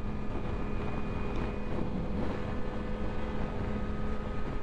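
Suzuki GSX-R sportbike's inline-four engine holding a steady cruising speed, a constant drone that does not rise or fall, with wind rushing over the microphone.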